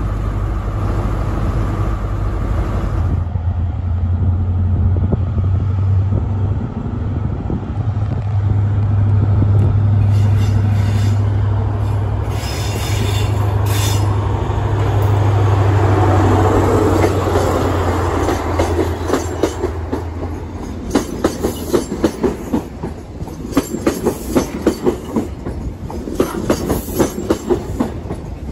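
Class 43 HST diesel power car of a Network Rail New Measurement Train running through, a steady low diesel drone that swells as it comes past. From about twenty seconds in, the coaches' wheels give a quick, regular clickety-clack over the track.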